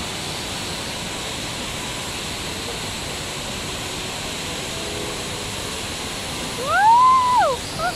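Steady rushing of the Rain Vortex, a tall indoor waterfall pouring from a glass dome into a round basin, heard as an even wash of noise. Near the end a high voice rises and falls once in a drawn-out call.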